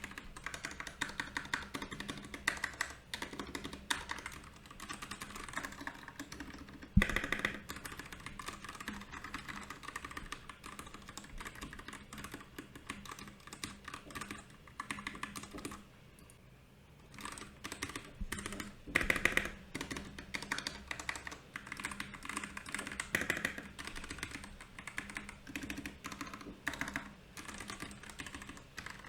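Fast typing on a Royal Kludge RK68 mechanical keyboard: a dense run of key clicks. There is a louder thunk about seven seconds in and a brief lull a little past the middle.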